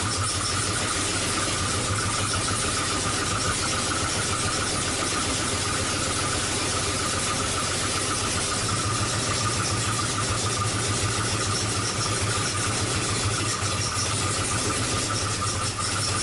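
Car engine idling steadily, with a constant hiss over the low, even pulsing of the engine.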